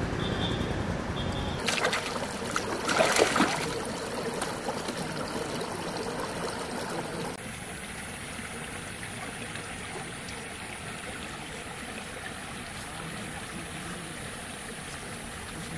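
Canal water splashing, with a few sharp splashes around two to three seconds in. After about seven seconds the sound changes to a steady, quieter trickle of water running out through culvert pipes.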